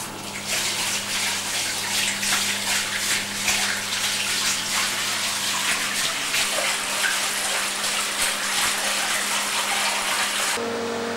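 Water rushing and splashing into a 1970s Supertatramat automatic washing machine as it fills, over a low steady hum. Near the end the water sound cuts off abruptly, leaving only a steady motor hum.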